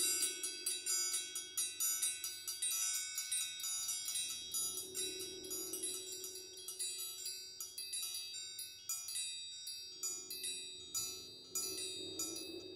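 Four triangles of different sizes struck in quick, overlapping strokes, their high metallic ringing layering into a shimmering texture. Underneath, a lower ringing tone swells and fades twice.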